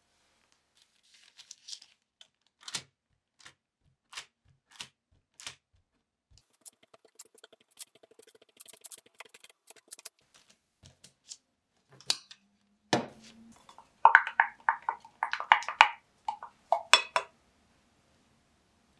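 Kitchen handling sounds: a fork pricking pizza dough on a parchment-lined baking tray, heard as a run of quick light taps, then a sharp knock about 13 seconds in and a louder stretch of clinks and paper rustling.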